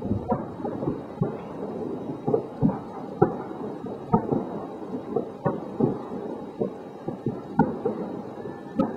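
Fireworks exploding: a steady rumble broken by many irregular booms and bangs, a few each second, overlapping one another.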